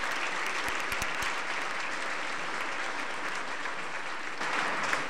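Applause from an audience and panel, a steady dense clapping that swells briefly near the end.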